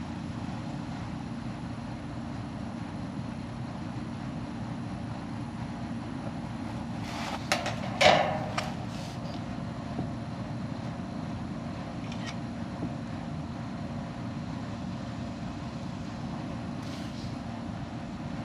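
Steady low mechanical hum, with a brief clatter of knocks about eight seconds in.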